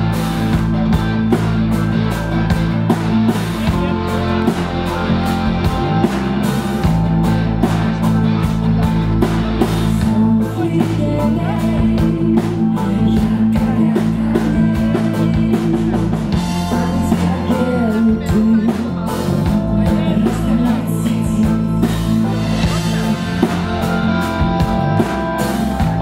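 Live rock music from a band with a string section, violins and cello playing sustained lines over a steady beat, with a woman singing into a microphone.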